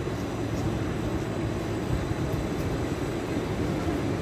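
Electric train running, a steady low rumble.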